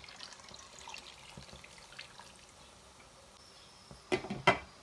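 A pot of rice and chicken with hot water just added, heating towards the boil with faint bubbling and crackling. Near the end comes a short clatter of three loud knocks, the loudest sound.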